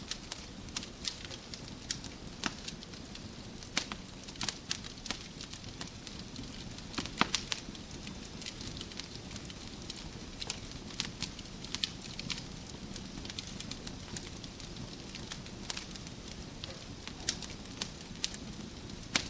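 Wood fire burning in a fireplace: a steady low rumble of flames with frequent sharp, irregular crackles and pops from the burning logs, a cluster of louder pops about seven seconds in.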